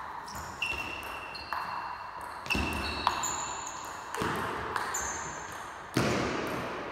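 Table tennis rally: the celluloid ball struck back and forth by rubber-faced rackets and bouncing on the table, each contact a sharp click with a short ringing ping, echoing in a large hall. Three harder hits about two and a half, four and six seconds in.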